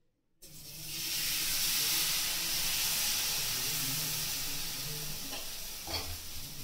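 Savoury chilra batter sizzling on a hot oiled tawa griddle. The sizzle starts about half a second in, swells over the next second, then slowly eases. There is a short knock near the end.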